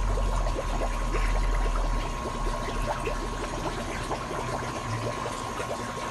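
Aquarium filter returning water into a goldfish tub: a steady trickling and splashing with a low hum. A thin steady whine sits underneath throughout.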